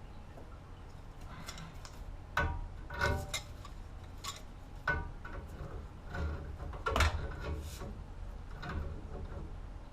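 Irregular clicks and knocks of hand work on gas line fittings, about nine sharp strikes at uneven gaps, the loudest about two and a half seconds in and around seven seconds.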